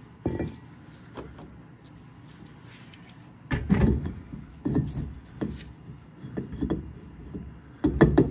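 Rear brake rotor of a 1999 Subaru Impreza being slid onto the hub over the parking brake shoes: a few small clicks, then from about three and a half seconds in a string of metal knocks and scrapes as it is worked into place. This is a test fit of the freshly adjusted parking shoes, set to sit just off engagement inside the rotor's hat.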